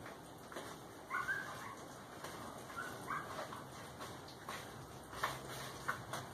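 A steel stir stick scraping and clicking in a plastic bowl as stiff, wet Satanite refractory cement is mixed with water. A few short high squeaks are heard, the loudest about a second in, and there is a sharp click a little past five seconds.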